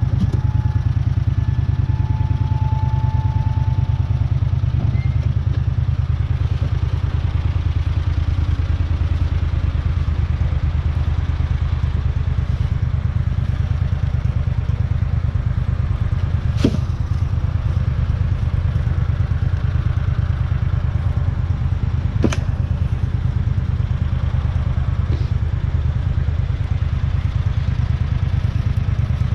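Gator utility vehicle's engine running steadily with a fast, even low pulse while it hauls a load, with two sharp knocks about five and a half seconds apart in the second half.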